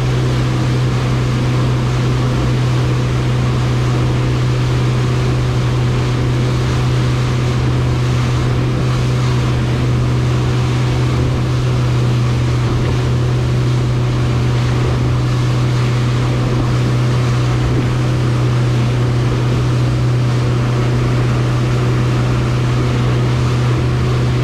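A 115 hp outboard motor runs steadily at cruising speed, its low drone unchanging, over the rush of water and wind as the boat planes.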